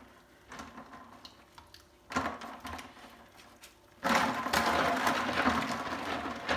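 Live snails' shells clicking against each other and water sloshing as gloved hands rub them together in a sink of foamy water. About four seconds in, a louder steady rush of splashing sets in and continues.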